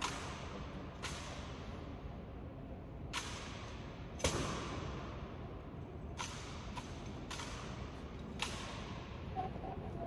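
An honor guard's drill: about nine sharp clacks and slaps of rifles and stamping boots at uneven intervals, each ringing on in a large echoing hall. The loudest, a heavy thud, comes a little over four seconds in.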